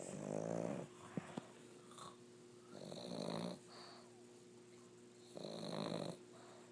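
Pug snoring in its sleep: three snores, each under a second long, spaced about two and a half seconds apart. Two short clicks come soon after the first snore.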